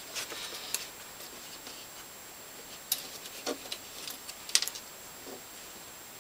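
Hands handling small craft pieces on a tabletop: scattered light clicks and taps with faint rustling, the sharpest click about four and a half seconds in.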